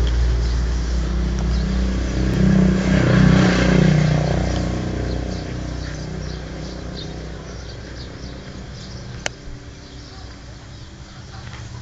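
Yamaha Mio scooter engine running at idle, revved up briefly about three seconds in and then easing back and growing quieter. A single sharp click about nine seconds in.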